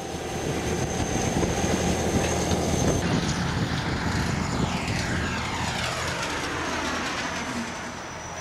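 Aircraft engines running in a steady, loud drone. From about three seconds in, a hissing sweep falls slowly in pitch.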